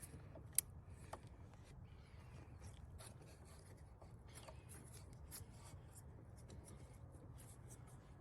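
Faint clicks and rubbing of hands handling the purge valve's plastic electrical connector as it is fitted, with one sharper click about half a second in, over a low steady hum.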